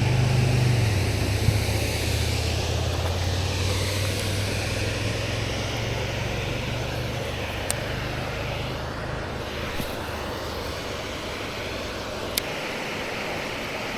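Engine drone of a propeller airplane passing overhead: a steady low hum with a slowly shifting rush above it, fading gradually. Two brief sharp clicks come in the second half.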